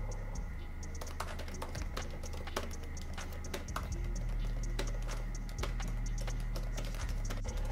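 Typing on a laptop keyboard: a quick, irregular run of key clicks over background music with a steady low drone.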